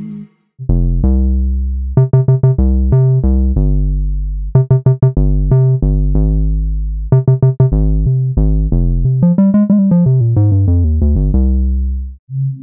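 Simple analog-style synthesizer bass patch (Omnisphere's "Simplest Bass") playing a bass line. Short, plucky notes come in groups of quick repeats, and several notes slide down in pitch with glide near the end.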